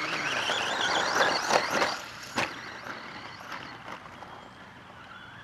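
Electric RC truck racing on a dirt track: the motor's high whine rises and falls as it throttles on and off over the sound of the tyres on dirt. A sharp knock comes about two and a half seconds in, then the truck grows quieter.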